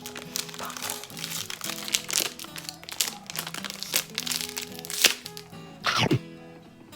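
Plastic wrapper of a Melona ice bar crinkling and crackling in irregular bursts as it is handled and opened, over background music. A short falling whoosh comes about six seconds in.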